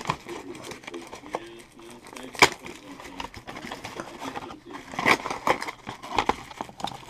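Cardboard box handled close to the microphone and its flaps opened: irregular rustling, scraping and knocks, with one sharp snap about two and a half seconds in and a busier run of knocks near the end.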